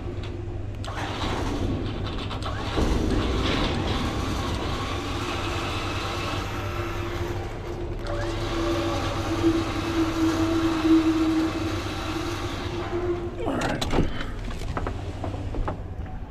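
Pickup truck engine running as it slowly maneuvers a gooseneck dumpster trailer, with a steady whine for several seconds in the middle and a few metallic knocks near the end.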